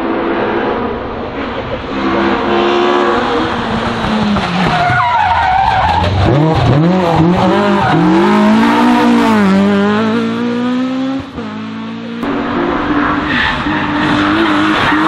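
Race car engines driven hard on a hillclimb course, the revs climbing and dropping sharply again and again as the driver changes gear and lifts off for corners. A steadier engine note takes over after a brief dip about eleven seconds in.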